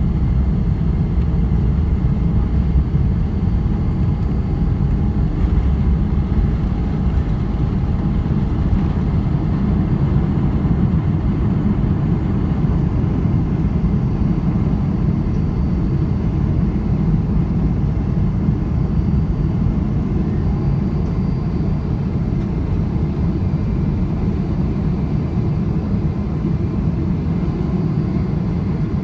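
GE90 turbofan engines of a Boeing 777-300ER at takeoff thrust, heard inside the cabin near the wing: a loud, steady rumble with a faint whine above it, through liftoff and the initial climb.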